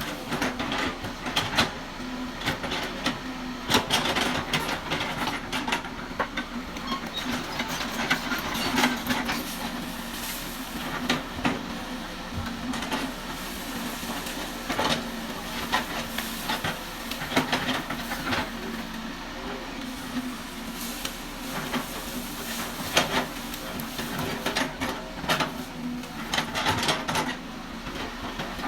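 Excavator running steadily with a constant engine hum, broken by frequent irregular metallic clanks and knocks.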